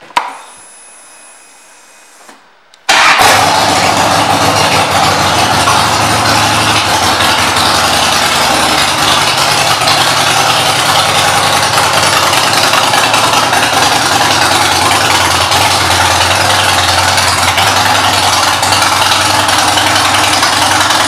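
2008 Harley-Davidson Fat Boy's Twin Cam 96 V-twin, fitted with aftermarket pipes, comes in abruptly about three seconds in and idles steadily.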